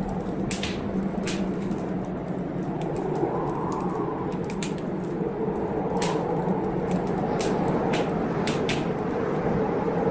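Wood fire crackling in a fireplace, with sharp irregular pops about twice a second over a steady rushing background of storm rain.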